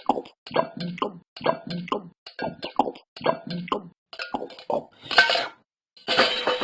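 Person drinking apple juice in quick, repeated gulping swallows, about two a second, followed by two short breathy bursts near the end.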